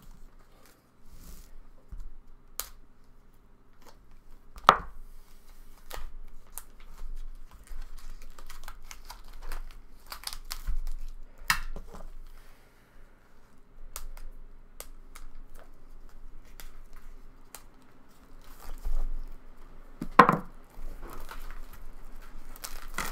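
Packaging being torn and crinkled by hand, with scattered small clicks and rustles and two louder knocks, one about five seconds in and one near the end.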